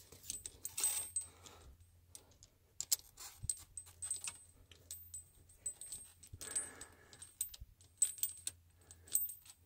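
Trygg studded steel tractor tire chains clinking and jangling as the links are pulled and hooked together by hand on the tire, in short, irregular metallic clinks.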